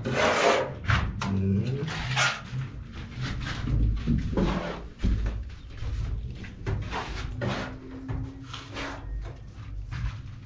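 Sponge float rubbing over wet cement plaster on a ceiling, one short scraping stroke after another.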